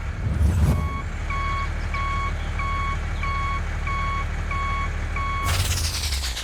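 A vehicle reversing alarm sounds evenly spaced short beeps, about one and a half a second, over a steady low engine rumble. A loud rushing whoosh follows near the end.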